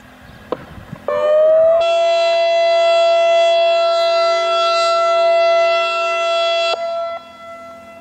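ASC I-Force electronic siren sounding: a short gliding sweep a second in, then a loud steady tone held for about five seconds that cuts off near the end.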